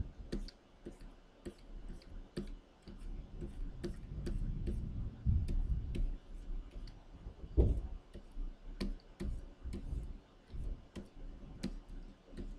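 Plastic stylus nib tapping and stroking on a Wacom Cintiq pen display: light, irregular clicks a few times a second while digitally painting. Low dull thumps sound underneath, the loudest a little past halfway.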